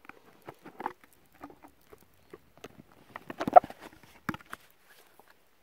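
An oracle card deck being taken out and handled, probably shuffled: a run of quick, irregular taps and rustles, loudest about three and a half seconds in.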